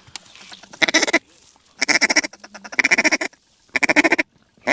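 Duck quacking in loud bursts, each a quick run of quacks, about one burst a second, four or five times.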